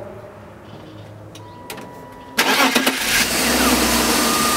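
1998 BMW 328is's 2.8-litre straight-six starting: a short crank, catching about two and a half seconds in, then running steadily with a thin whine. It is being run after a coolant refill, with the bleeder screw open, to purge air from the new radiator.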